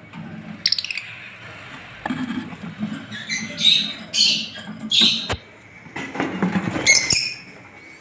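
Lovebirds giving a handful of short, sharp, high-pitched calls, bunched about halfway through and again near the end.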